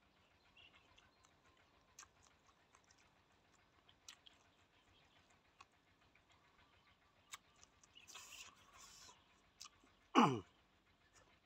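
Close-up chewing of roasted meat: soft wet mouth clicks and smacks scattered through, with a short crunchy rustle about eight seconds in. Near the end comes one brief, louder sound that glides quickly down in pitch.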